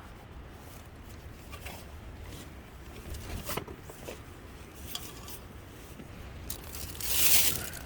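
Hands handling camp gear and food packaging: scattered light clicks and rustles, with a louder rustling swish near the end, over a low steady rumble.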